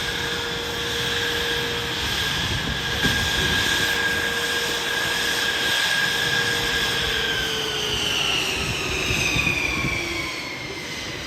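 Jet aircraft flying past: a steady engine whine over loud rushing noise, with the whine sliding down in pitch over the last few seconds as the aircraft passes and moves away.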